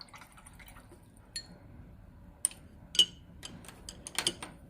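A painting brush being rinsed in a water container: a handful of light, irregular clinks and taps as the brush knocks against the container, with a few small splashes.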